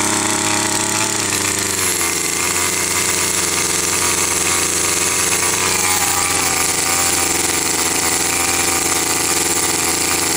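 Small 30cc two-stroke gasoline engine of a 1/5-scale RC buggy running on its first break-in run, still on the stock exhaust rather than a tuned pipe. It runs steadily with a rattly note, which drops a little about two seconds in.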